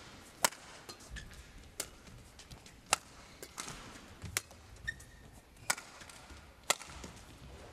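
Badminton rally: rackets striking the shuttlecock in a back-and-forth exchange, about six sharp cracks roughly a second to a second and a half apart.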